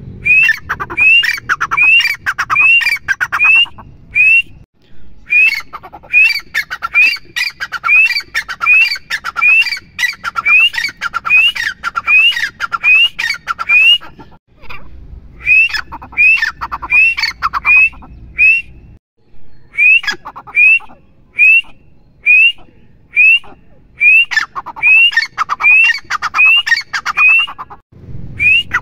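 Grey francolin (teetar) calling: a long run of sharp, rising notes, about two a second, repeated in bouts with short pauses between them.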